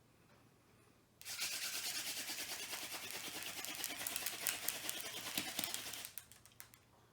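Hand-drill fire by friction: a tall ironweed spindle spun rapidly between the palms, grinding into a white pine fireboard with a dense rasping, chattering friction noise. It starts about a second in, runs for about five seconds and stops abruptly, followed by a few light clicks.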